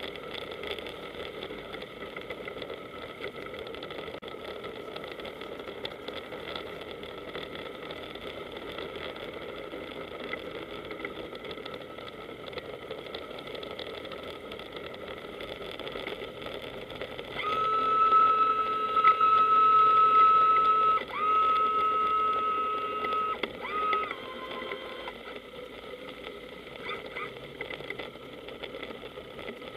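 Powerboat engine running at low speed with a steady hum. Past the middle a loud, steady high tone starts abruptly, breaks off and resumes, then drops lower in pitch and stops after about seven seconds.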